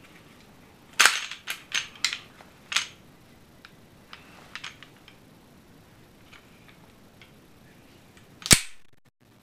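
Metal clicks and snaps from a Ruger SR9 pistol's slide and parts as it is worked and field-stripped: a quick run of five sharp clicks about a second in, a few faint ticks, then one loud snap near the end.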